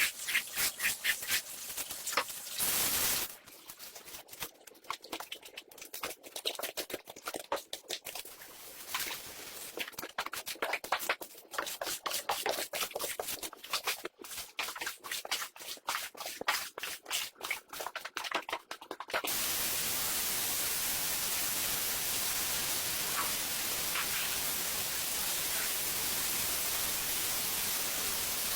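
Rapid, repeated scraping strokes on a shag rug, then, about two-thirds of the way through, a steady loud hiss from a cleaning machine that starts suddenly and runs on evenly.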